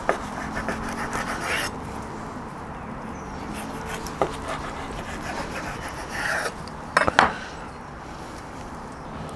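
Large kitchen knife cutting through a rack of smoked pork ribs on a wooden cutting board: a run of scraping sawing strokes in the first second and a half, then scattered clicks and two sharp knocks of the blade on the wood about seven seconds in.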